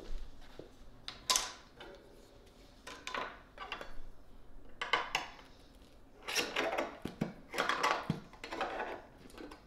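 Hands working the metal lid of a can of Varathane Triple Thick polyurethane open: a series of short metallic scrapes and clicks.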